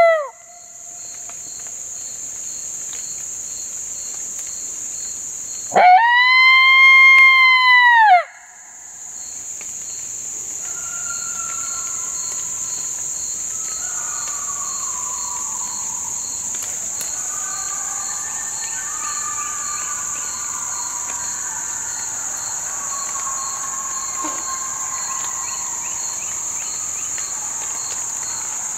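Hand-blown coyote howler call giving one loud lone howl about six seconds in, sweeping up, holding and dropping away. Afterwards faint, overlapping wavering coyote howls answer, over a steady high insect drone.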